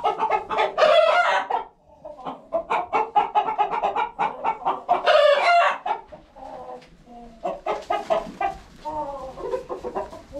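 Chickens clucking throughout, with a rooster crowing twice, once about a second in and again about five seconds in; the clucking is quieter near the end.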